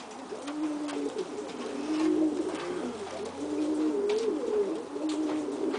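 Domestic pigeons cooing over and over, a string of low warbling coos that rise and fall in pitch and overlap one another.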